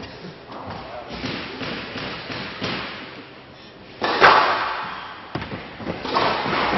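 Squash rally on a glass court: the ball is struck by the rackets and hits the walls in a run of sharp hits, with a louder bang about four seconds in. Crowd noise starts to rise near the end.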